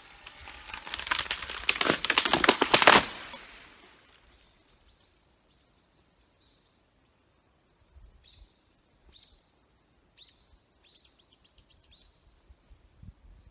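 A cedar tree crashing down: a dense run of cracking and snapping branches builds over about two seconds, then dies away. Afterwards a small bird calls with short falling chirps and a brief trill.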